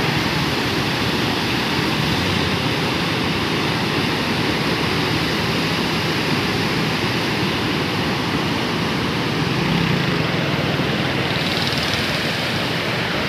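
Fast-flowing muddy floodwater rushing over a flooded field and embankment: a steady, loud rush of moving water.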